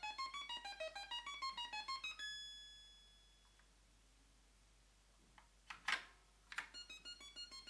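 Commodore SX-64's SID sound chip playing a fast organ-like tune of quick stepping notes, which stops about two seconds in with one held note fading away. After a pause, three plastic key clicks from the SX-64 keyboard, the middle one loudest, and the tune starts up again near the end.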